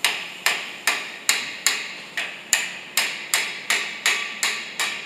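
A rapid series of sharp knocks, about a dozen at roughly two and a half a second, each ringing briefly before the next, as if struck by hand.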